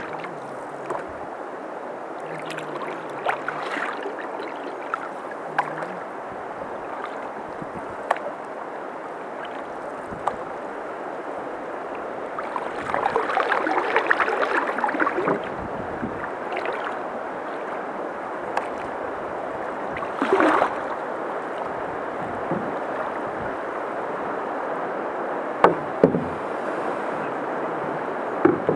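Canoe being paddled on a river: steady rush and splash of water along the hull and paddle strokes, louder for a couple of seconds midway, with scattered sharp knocks.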